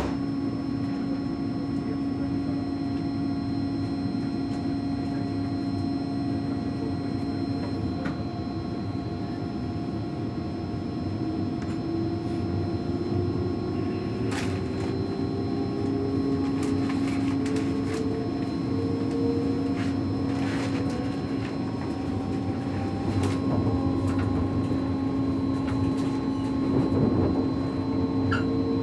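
Inside a German ICE3 high-speed electric train as it pulls away: a steady electrical hum with traction motor whine that rises slowly in pitch as the train gathers speed, and a few short clicks from the running gear.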